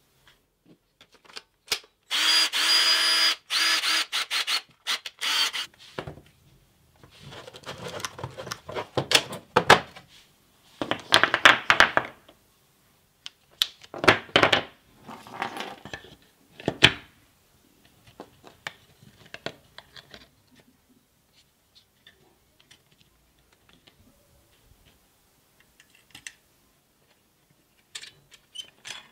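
A small power-tool motor runs steadily at an even pitch for about three seconds near the start. After it come bursts of rattling and scraping, then scattered light clicks, as cylindrical lithium cells and plastic battery-pack parts are handled.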